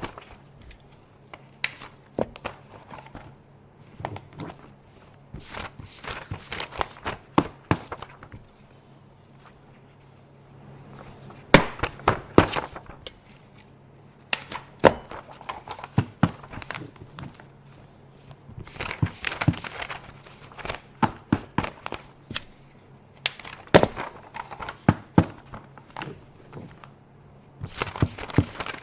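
Office paper being handled: sheets rustling and crinkling in bursts, with sharp clicks and snaps from a stapler, in clusters separated by short pauses, the longest about a third of the way in.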